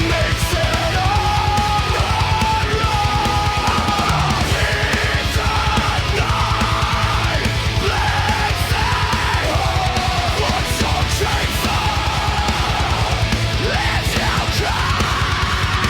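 Heavy metal music: fast, driving drums under electric guitars, with a wavering melodic line on top.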